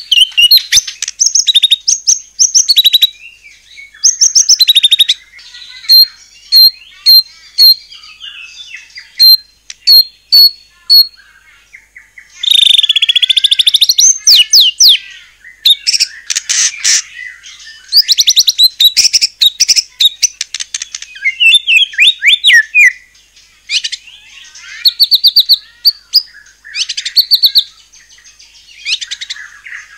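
White-rumped shama (murai batu) in full, continuous song. Its loud, varied phrases mix series of short clear whistles with rapid chattering trills, and a longer buzzy run comes about halfway through.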